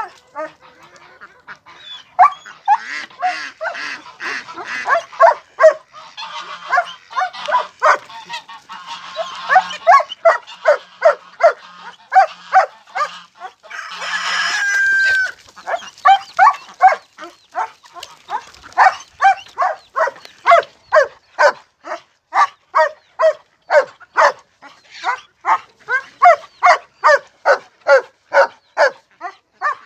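Poultry calling in a long run of short, repeated calls, one to two a second, with a louder burst of rushing noise about halfway through.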